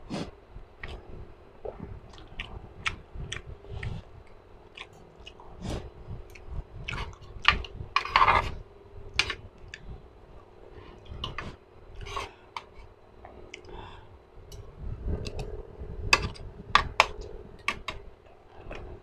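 A person chewing and eating close to a clip-on microphone, with many sharp wet mouth clicks and smacks. The loudest stretch is a longer burst about eight seconds in, and there is another cluster of clicks near the end.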